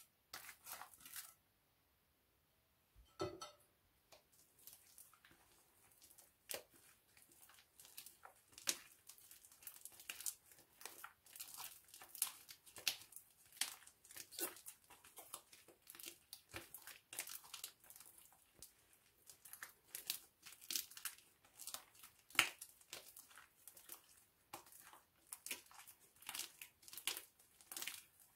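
Black slime made with glue and shaving foam being stretched and squeezed by hand, giving quiet, irregular sticky crackles and pops, several a second. There is one sharp knock with a brief ring about three seconds in.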